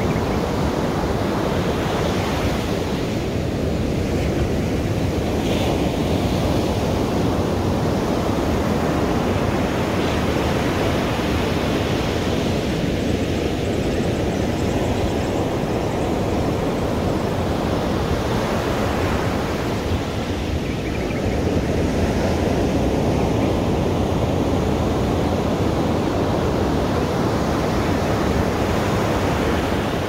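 Ocean surf breaking and washing up a beach: a continuous rush that swells and eases every several seconds.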